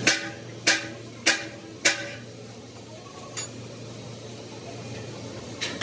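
Four sharp metallic clinks, evenly spaced about 0.6 s apart, each with a short ring, from a metal hand tool working a rubber tyre-repair patch. After them comes a quieter stretch with two faint clicks, one near the middle and one near the end.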